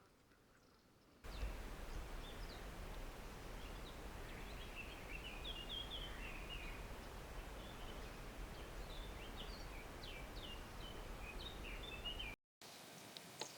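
Eurasian hoopoe (Upupa epops) giving its alarm call, a strange sound unlike its usual song: a long irregular series of short, high notes over a steady low background rumble.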